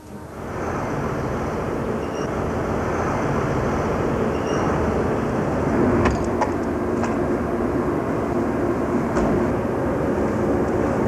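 Steady rumbling vehicle noise that rises in over the first second and then holds. A few sharp clicks come through from about six seconds in.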